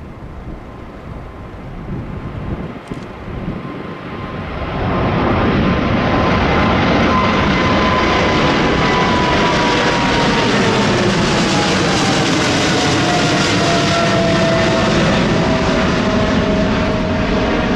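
Jet airliner passing close, its engine noise swelling loud about five seconds in and holding, with an engine whine that slides slowly down in pitch as it goes by.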